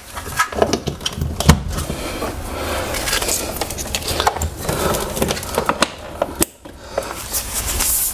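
Rustling, scraping and knocking of cables and equipment being handled under a desk, with many sharp clicks and a brief lull about six and a half seconds in.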